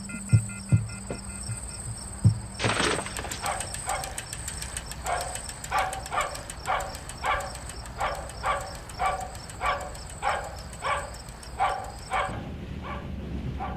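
Night insect chorus: a steady high trill, with a lower pulsing call repeating about twice a second. Both stop suddenly about twelve seconds in.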